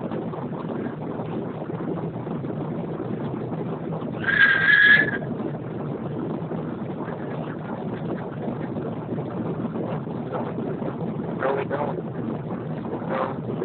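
Steady engine and airflow noise inside the cabin of an Airbus A330-300 airliner on its landing approach, heard from a seat over the wing. About four seconds in, a loud high-pitched tone cuts through for about a second.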